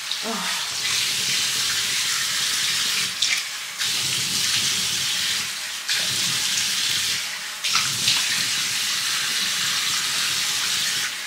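Tap water running steadily into a sink as a face is washed, the splashing dipping and shifting briefly a few times.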